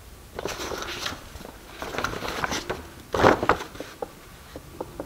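Rustling and handling noise as small handmade gift items are picked up and moved about: three bursts of rustling, the loudest a little after three seconds in, then a few light clicks.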